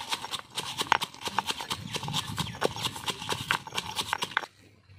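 Stone pestle pounding dried red chillies in a stone mortar: quick, uneven knocks of stone on stone, several a second, stopping suddenly shortly before the end.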